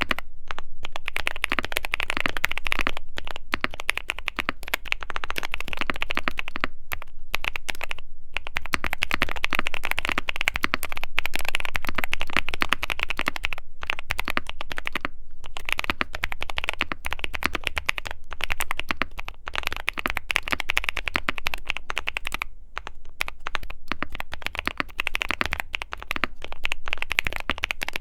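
Steady fast typing on a QK65 mechanical keyboard with a POM plate, Gazzew Boba U4T tactile switches and PBT keycaps: a dense run of keystroke clacks, broken by a few short pauses.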